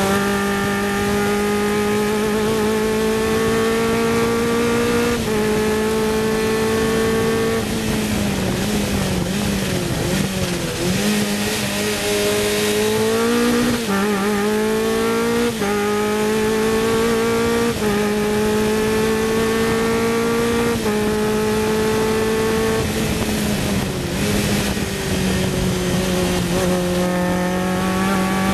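Sports 2000 race car engine heard on board at high revs, its pitch stepping down at each upshift. About eight seconds in it falls away under braking and downshifts. It then climbs again through a quick run of upshifts roughly every two seconds, with a short dip near the end before pulling hard again.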